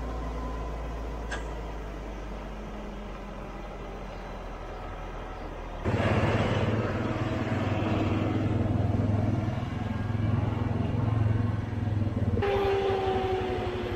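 A truck engine runs steadily while its tipped box dumps chopped silage. About six seconds in, a louder John Deere tractor engine takes over with a steady low pulse. Near the end, a John Deere tractor on dual rear wheels drives up the silage pile to pack it, its engine carrying a whine that falls slightly in pitch.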